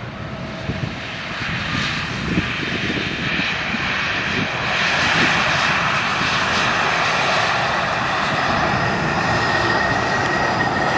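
Boeing 777-300ER's GE90 jet engines during the landing rollout: a continuous roar that grows louder about five seconds in, with a thin high whine coming in near the end.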